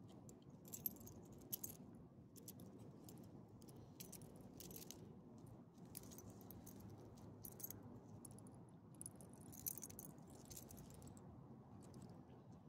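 Faint metallic jingling of a small dog's metal ID tag and leash clip: a few brief clinks scattered over several seconds, over a low steady hiss.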